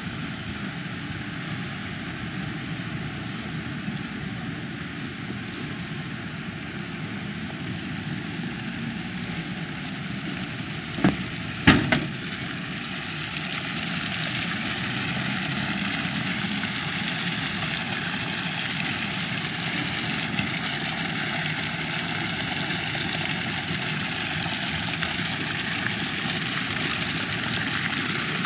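Steady outdoor ambience of a city square: a wash of traffic noise and fountain water splashing, growing a little louder in the second half. A few sharp clicks or knocks sound close together near the middle.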